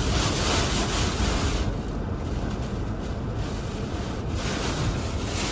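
Hurricane-force wind buffeting the microphone with a heavy low rumble and a hiss. The hiss eases for a couple of seconds in the middle, then picks up again.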